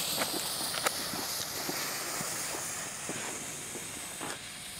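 Lit fuse of a Lesli Sputnik ground-spinner firework burning, a steady hiss with small crackles from the sparks, slowly getting fainter.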